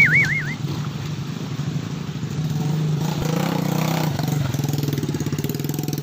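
Dirt bike engine running at low revs as the bike is ridden slowly through a rocky stream, the revs rising for a couple of seconds about two and a half seconds in and then settling back. A warbling whistle-like tone dies away in the first half second.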